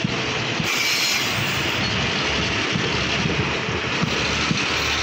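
Indian Railways passenger coaches rolling past close by: a steady rush of steel wheels on rail, with irregular low thumps as the wheels cross rail joints.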